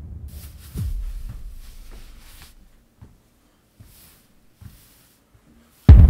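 Low cinematic booms from a horror soundtrack. A deep rumble fades out, and a second low hit about a second in dies away. After a few faint clicks in near quiet, a sudden loud deep boom comes near the end and runs into a rumble.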